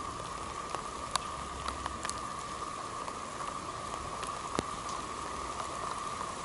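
Steady background hiss with a faint constant tone and scattered light ticks, like drips.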